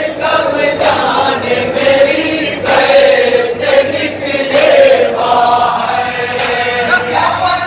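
A group of men chanting a nauha, a Shia lament, together in a slow melodic line. Sharp slaps of matam, chest-beating, come roughly once a second.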